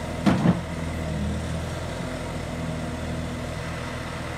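Bobcat compact track loader's diesel engine running steadily at low throttle, with a short louder noise about a third of a second in.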